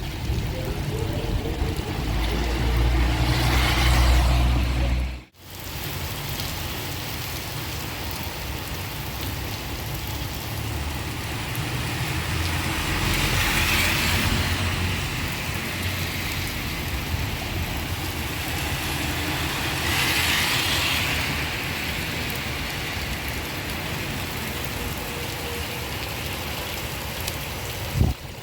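Steady rain with the hiss of vehicles passing on a wet road, swelling and fading about three times. A low rumble near the start stops abruptly about five seconds in, and there is a single knock near the end.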